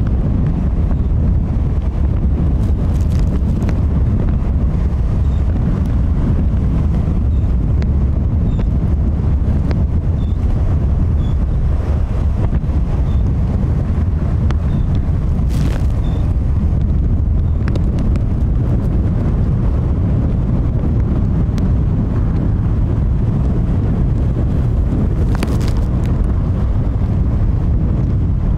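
Strong wind buffeting the microphone as a heavy, steady low rumble, with a few brief knocks.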